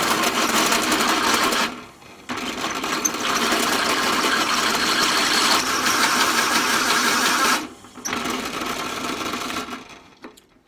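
Pillar drill cutting the countersunk head off a steel hub-to-drum bolt, a loud rapid chattering grind as the cutter bites. It breaks off twice for a moment, about two seconds in and again near eight seconds, and dies away near the end as the head is cut through.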